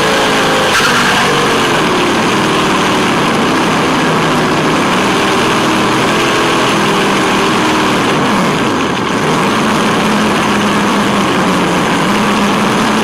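A Tamiya Wild Willy 2 RC truck's electric motor and gearbox whine under throttle, the pitch rising and falling as the driver speeds up and eases off, with a dip and recovery about nine seconds in. Steady hiss from the tyres on asphalt runs under it, picked up by the onboard camera.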